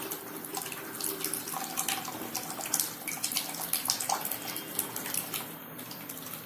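Water poured from a plastic jug through a plastic funnel into a plastic bottle: a steady trickle with many small irregular splashes.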